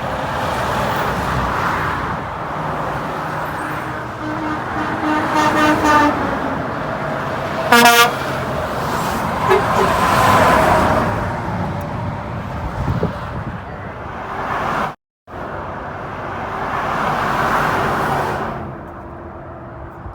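Semi-truck air horn answering a honk request over steady highway road and traffic noise: a horn tone about five seconds in, then a short, loud blast about eight seconds in.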